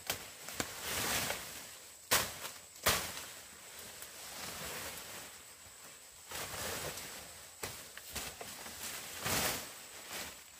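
Rustling and handling noises, with two sharp knocks about two and three seconds in.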